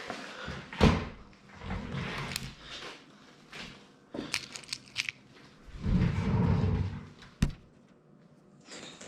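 Small hardware being handled and rummaged through, likely screws and parts being searched for one that fits the rack panel: scattered sharp clicks and knocks, a rattling run of light clicks in the middle, and a longer scraping shuffle a little later.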